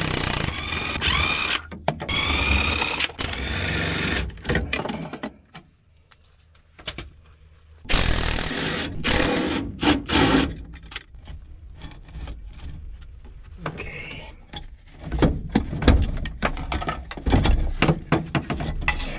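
DeWalt 20V cordless impact wrench hammering at a bolt through a long extension, which softens its hits. It runs in two long bursts a few seconds apart, its pitch rising and falling. Near the end come scattered metal clanks and knocks as parts are worked loose.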